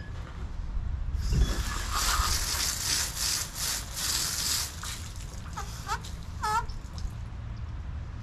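Garden hose spray nozzle hissing as water is sprayed over a freshly caught fish, starting about a second in and stopping and starting briefly before it cuts off near the end. A few short high whines come through around two-thirds of the way in.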